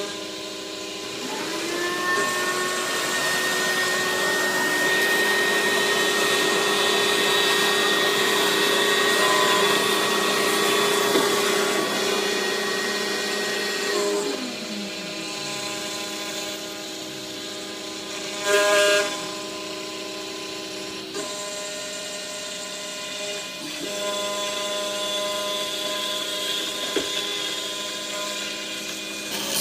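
MillRight CNC router running a cut: a steady machine hum and whine throughout, with a tone that rises about a second and a half in, holds, then slides down in pitch around the middle. A short loud burst comes a few seconds later.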